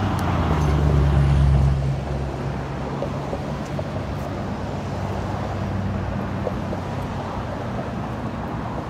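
A motor vehicle's engine droning close by, loudest in the first two seconds and then easing off, over a steady low hum and background traffic noise.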